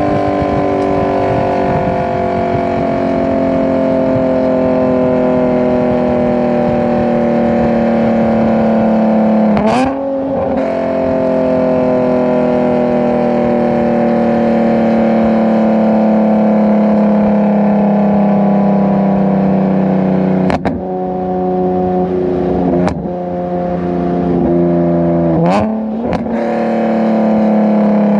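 Nissan 370Z's 3.7-litre V6 with PPE headers, heard while driving: the exhaust note sinks slowly as the revs fall. It breaks off briefly with a short jump in pitch about ten seconds in and again near the end, with a couple of sharp clicks in between.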